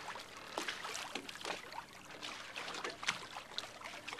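Water splashing and lapping along a moving boat's hull, with many small irregular splashes over a steady hiss.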